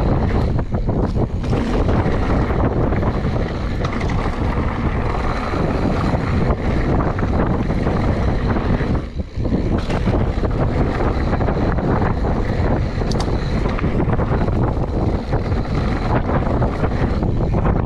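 Wind buffeting the microphone as a mountain bike rides a dirt jump line, over a steady rumble of tyres on the trail. The noise dips briefly about nine seconds in.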